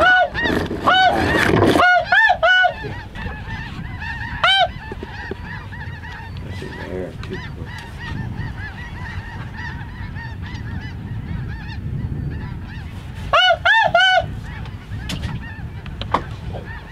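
Geese honking: a steady chorus of distant honks from flocks overhead, broken by loud, close honks in short runs of two to four near the start, around two seconds, once near five seconds, and again about thirteen seconds in.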